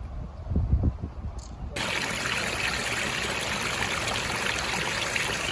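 Steady rush of running stream water that starts abruptly about two seconds in, after a few low thumps.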